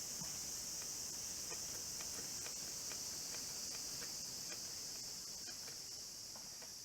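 Steady high-pitched chorus of insects such as crickets, with faint scattered ticks underneath.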